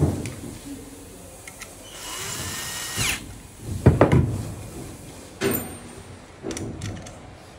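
Steel lock and handle parts being handled and set down on a hard floor: a series of clanks and knocks, loudest about four seconds in. About two seconds in there is a brief high-pitched hissing noise with a thin whine.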